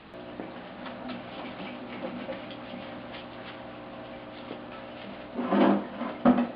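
Light scraping and small clicks of a razor blade working gunk off a Mazda 13B rotary engine's rotor housing. A louder, noisier scrape comes about five and a half seconds in, and a sharp knock just before the end.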